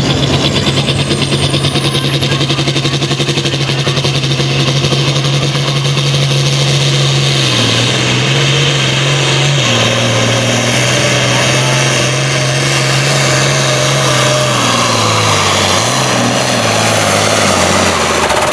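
Turbocharged International Harvester diesel tractor running flat out while pulling a weight-transfer sled, with a high turbo whistle over the engine. The engine note drops about seven seconds in and sinks further near the end, lugging down as the sled's load builds until the pull ends.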